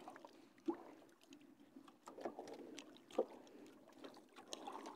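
Faint water lapping against the hull of a small wooden outrigger boat, with a few soft splashes and knocks.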